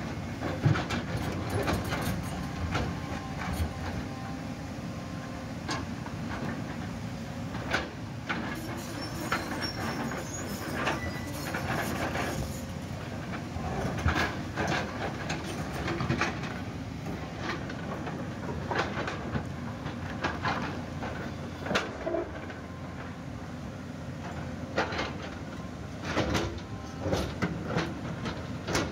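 JCB crawler excavator's diesel engine running steadily under load as its bucket digs and scrapes into a rocky slope, with many sharp knocks and clatters of rock and stones breaking loose and tumbling down.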